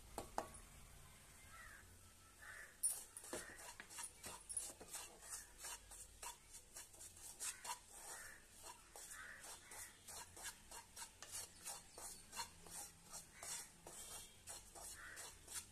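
Wooden spatula scraping and stirring dry ragi flour and semolina around a nonstick pan while they roast: quick, repeated faint scraping strokes, with a sharper knock about three seconds in.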